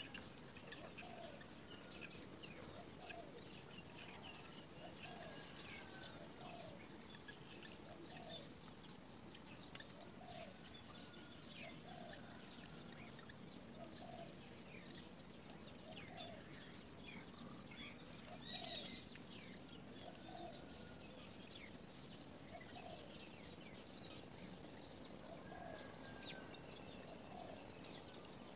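Faint birdsong: a low call repeated steadily, about one and a half times a second, with many short high chirps from other birds scattered through it.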